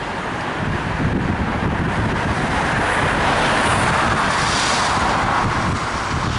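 A car passing on a wet road, its tyre hiss swelling from about three to five seconds in and then easing off over steady street noise.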